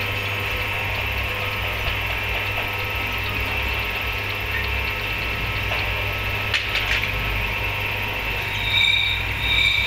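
Steady machine hum of a running motor, with a few light clicks about six and a half seconds in and two short high tones near the end.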